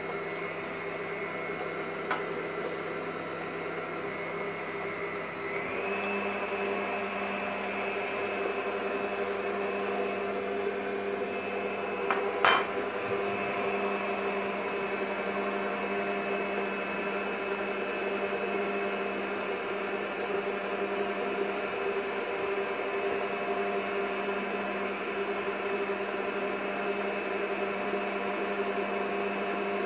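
Electric stand mixer running steadily with its flat beater creaming butter, icing sugar and eggs in a steel bowl. Its motor whine rises in pitch about five or six seconds in, and a single sharp knock stands out about twelve seconds in.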